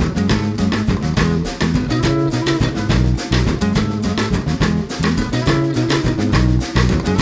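Background music with a steady beat, carried by guitar and drums over a bass line.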